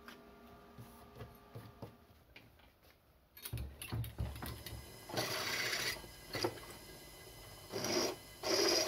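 AEG bench drill press drilling into metal in a vise. After a quiet start and a few low knocks, the bit cuts in repeated loud bursts about a second long as the spindle is fed down. This is a test run of the freshly repaired spindle feed mechanism.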